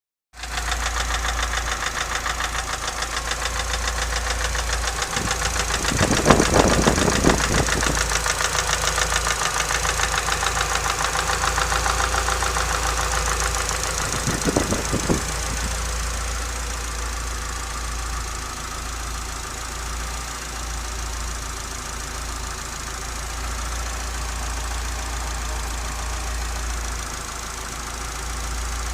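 Nissan Silvia S15's SR20 four-cylinder engine running with a rattle, the unexplained fault the owner is asking about. It has a fast pulsing beat, with louder bursts of knocking about six seconds in and again around fourteen seconds in.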